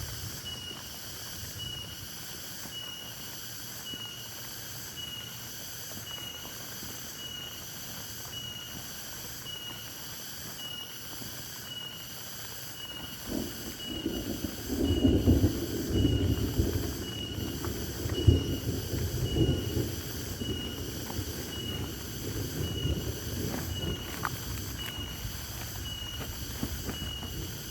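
A high-pitched insect chorus pulsing evenly, about once a second. From about halfway through, low rustling and knocking noises come in close to the microphone, louder than the chorus.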